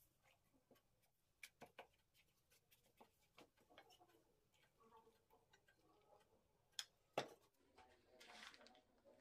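Faint handling sounds of thin baklava dough sheets being laid into a metal tray: a few irregular light clicks and taps with soft rustling. Near the end comes a short, hissing rustle as chopped walnuts are sprinkled over the buttered dough.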